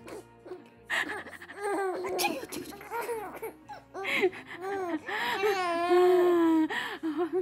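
Baby laughing in a string of short, high, breathy bursts and squeals, with one longer held squeal near the end.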